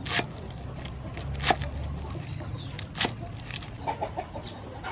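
A cleaver chopping green vegetable stems on a wooden board: a few sharp strikes, spaced irregularly. Hens cluck in the background near the end.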